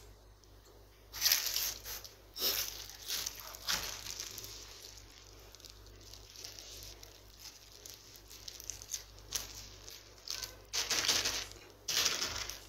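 Water-filled plastic bags crinkling and rustling as they are handled and set down on a table, in several short bursts, the loudest about a second in and near the end.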